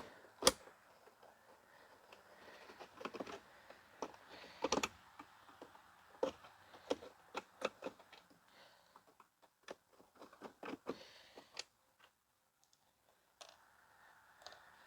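Irregular light clicks and knocks of a screwdriver and plastic parts as the plastic housing of a 1990s Eureka Whirlwind upright vacuum is unscrewed and separated.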